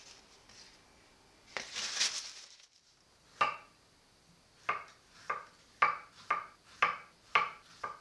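Kitchen knife slicing strawberries on a wooden cutting board: a sharp tap as each cut meets the board, eight in an uneven run over the last few seconds. A brief rustle about two seconds in.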